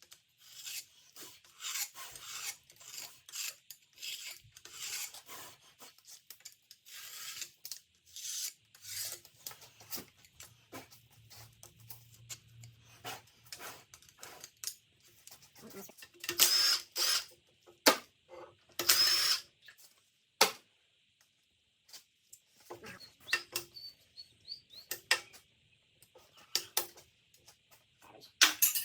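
Hand work on a bare engine: repeated scraping and rubbing strokes, with a few sharp metallic clinks of tools or parts knocking together, which ring briefly.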